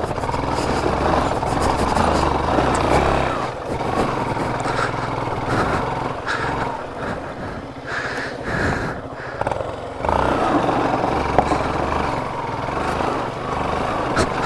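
Yamaha FZ motorcycle engine running while the bike is ridden over a rough off-road trail, with rushing noise around it. The engine drops back for several seconds in the middle and picks up again about ten seconds in.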